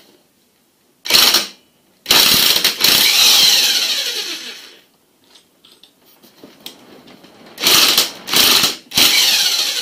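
Electric impact wrench hammering on a connecting rod's cap bolts, trying to break loose bolts that are very tight from the factory. A short burst about a second in, then a long burst of about three seconds that winds down, then three more short bursts near the end.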